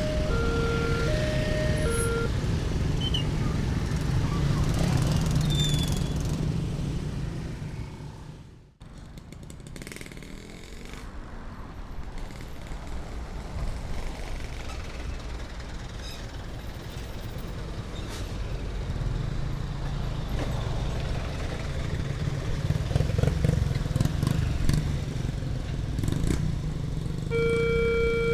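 Railroad level-crossing warning siren alternating between two tones for the first couple of seconds, then a steady low vehicle rumble that cuts out abruptly about nine seconds in and builds back up. The two-tone crossing siren starts again near the end.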